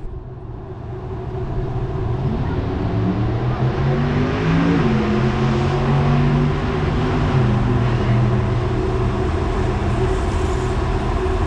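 A vehicle engine running, its pitch climbing for a couple of seconds, dropping back about halfway through, then running steadily.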